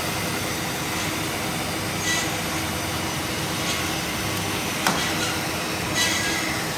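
Addison S-300HB automatic bandsaw running, a steady mechanical noise with short hissy swells every second or two. A sharp click about five seconds in.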